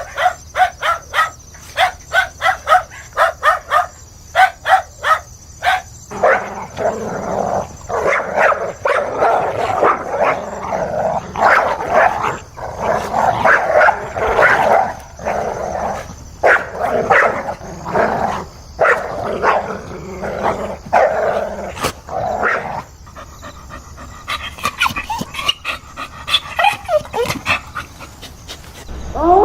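Dog barking: a fast run of short, high barks for the first few seconds, then a long stretch of fuller, denser barking, turning fainter and sparser near the end.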